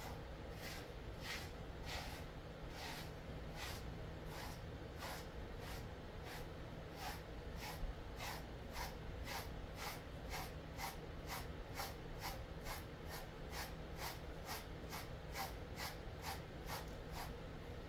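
Grooming brush raked again and again through a Jindo-mix dog's thick coat: short bristly swishes, about one and a half a second at first and quickening to more than two a second about halfway through.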